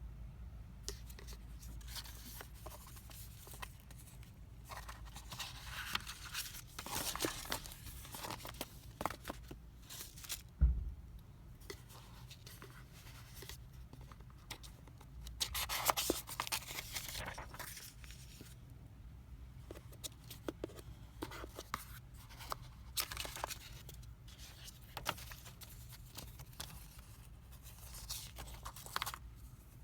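Product packaging being handled and torn open: several bursts of tearing and crinkling, with one low thump about ten seconds in.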